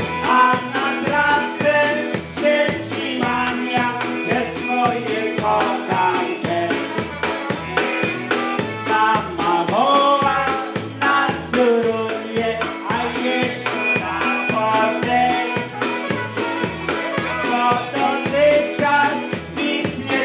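Live polka band playing: a concertina carries the melody over a drum kit keeping a steady, even polka beat.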